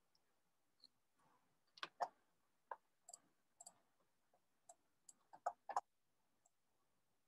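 Near silence broken by faint, irregular clicking: about a dozen short, sharp clicks, the loudest around two seconds in and just before six seconds.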